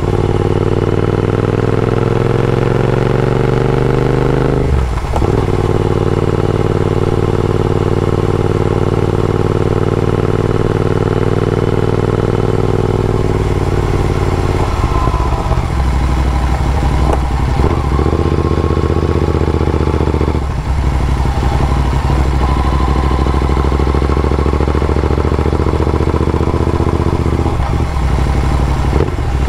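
Royal Enfield Interceptor 650's parallel-twin engine through AEW TE101 aftermarket exhausts. The bike is ridden and pulls up through the gears: the engine pitch climbs steadily, then drops at each gear change, several times.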